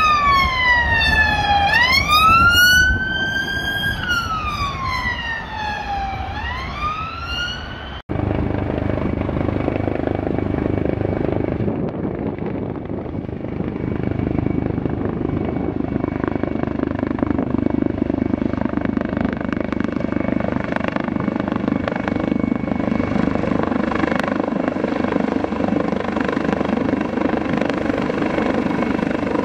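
Emergency vehicle siren wailing in slow rising and falling sweeps for about eight seconds, then cut off. It is followed by the steady running noise of a coastguard search-and-rescue helicopter overhead, slowly growing louder.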